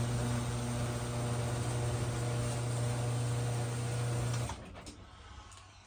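Electric garage door opener motor running steadily as the door goes up, a low hum over a mechanical whir, then stopping about four and a half seconds in.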